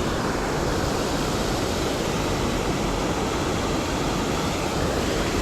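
Steady rush of a creek waterfall, an even noise with no changes.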